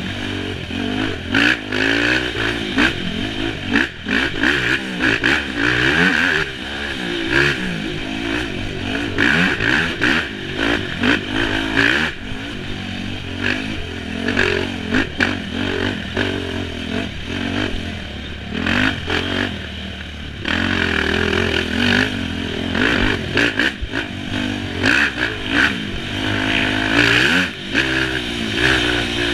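Off-road dirt bike engine revving up and down continually as the rider works the throttle and shifts on tight single-track, close to the microphone. Frequent knocks and rattles come from the bike over the rough ground.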